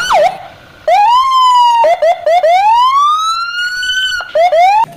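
Police siren sounding a series of rising whoops: a few short quick chirps, one long rising wail that levels off, then more quick chirps near the end.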